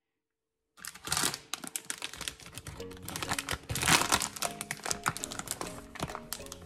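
A packet of chickpea flour crinkling and rustling in the hands as it is handled and opened. It starts about a second in, over background music.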